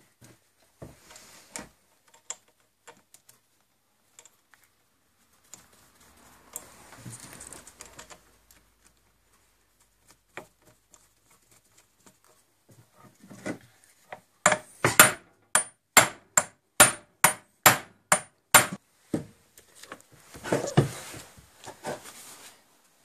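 Small metal clicks of bolts and nuts being handled on the headstock cover. A little past halfway comes a quick series of about a dozen sharp hammer blows on the steel lathe headstock, two or three a second, with a metallic ring, then some looser clattering handling noise.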